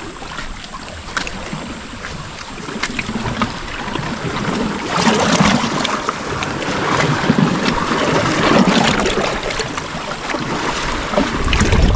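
Waves washing on a rocky shore, with wind buffeting the microphone. The surf swells louder about five seconds in, and a few sharp clicks sound through it.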